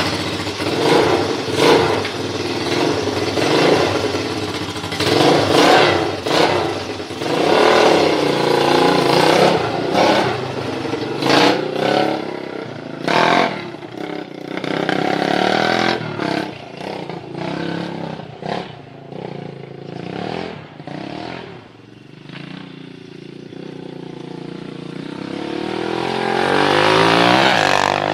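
Small engine of an old Honda three-wheeler running and being revved up and down over and over, then held in a long climb in revs near the end before easing off.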